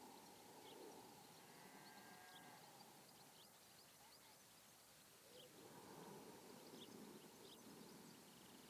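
Near silence: faint room tone with a scattering of short, faint high chirps.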